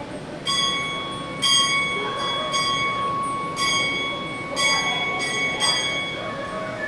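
Steam locomotive bell rung by hand, about seven strikes roughly a second apart. Each strike leaves a clear, sustained metallic ring that overlaps the next.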